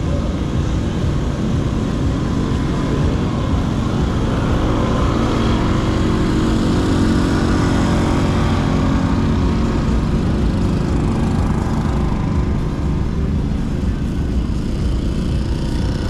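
A steady engine hum, growing louder through the middle few seconds and then easing off.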